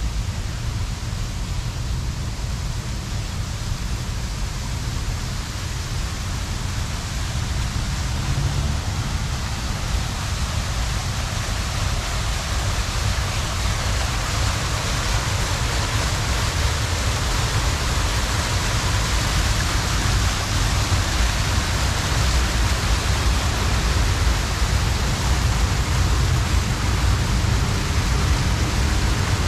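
Fountain water splashing, a steady hiss that gradually grows louder, over a steady low rumble.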